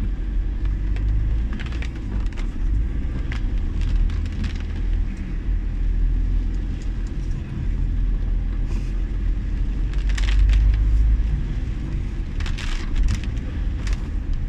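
Inside a Toyota Innova driving on a rain-soaked road: a steady low rumble of engine and tyres on wet tarmac, with short hissing swishes now and then, the loudest about ten and twelve and a half seconds in.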